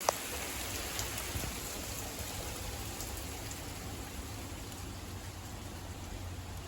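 Heavy rain falling steadily, with a sharp tick as it begins and a few fainter drop ticks early in the rain.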